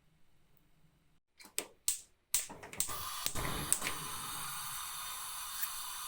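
Chicken breast going into hot oil: after a few sharp clicks, the oil starts to sizzle about two seconds in and keeps up a steady crackling hiss.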